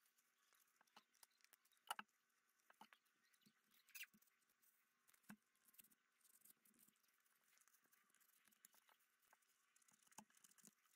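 Near silence with faint, scattered taps, clicks and scrapes as a papier-mâché skull is handled and its edges are trimmed with a knife; the sharpest clicks come about two, four and five seconds in.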